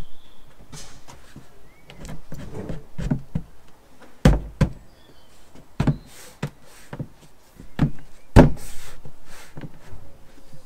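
Knocks and thumps of a wooden window frame being pushed and tapped into its opening in a plywood wall as it is bedded in sealant. There are a few soft taps, then several sharp knocks, the loudest about eight seconds in.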